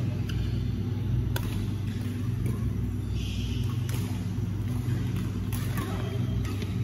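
Sharp, scattered clicks of badminton rackets striking shuttlecocks in rallies, over a steady low hum of a large indoor hall.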